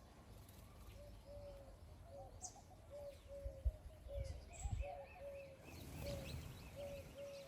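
Birds calling: a short low note repeated steadily about twice a second, with a few brief high chirps and a quick run of higher ticking notes near the end. A few soft low thumps come in the middle.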